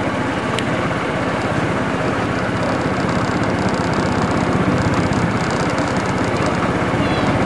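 Golf buggy driving along a track: a steady rumble of its motor and wheels.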